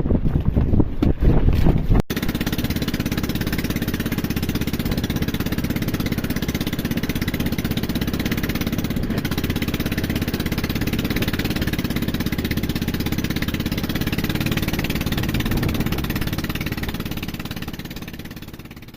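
Wind buffeting the microphone, then after a sudden cut about two seconds in, a small engine running steadily at an even speed. It fades out over the last few seconds.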